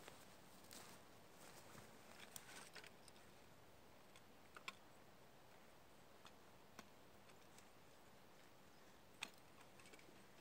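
Near silence with a few faint, sharp clicks and light rustles from a metal hurricane lantern being handled and unhooked from a backpack.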